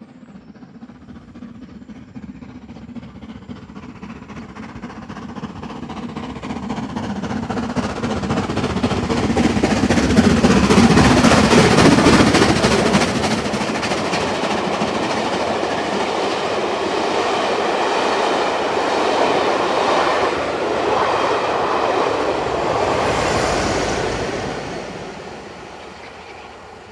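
LMS Black Five steam locomotive and its train of coaches passing at speed: the sound builds as it approaches, is loudest about ten to thirteen seconds in as the engine goes by, then the coaches run past on the rails for several seconds before the tail of the train passes and the sound fades away.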